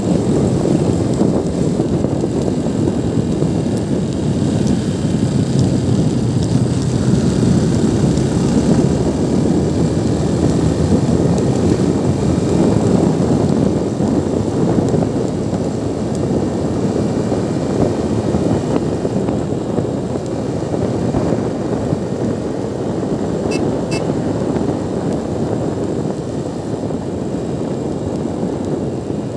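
Steady wind rush and road noise from a motorcycle riding along at speed, the wind buffeting the microphone.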